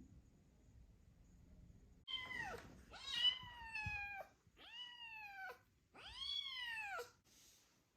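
A kitten meowing four times, high-pitched calls that each fall in pitch, the second and fourth drawn out longer.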